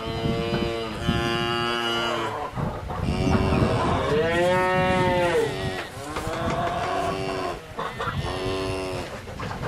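Cows mooing: a series of about six drawn-out calls in quick succession, each lasting around a second, one near the middle rising and falling in pitch.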